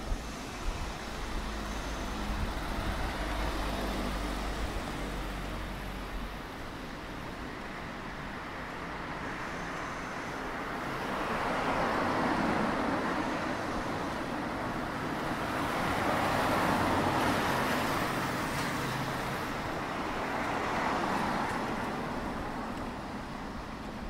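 Road traffic on a city street: cars passing by, their tyre and engine noise swelling and fading three times in the second half, over a low rumble in the first few seconds.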